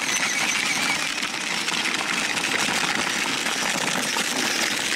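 Battery-powered children's ride-on motorcycle driving along a gravel path: its electric drive motor whirring and its plastic wheels crunching steadily over the gravel. A thin high whine fades out about a second in.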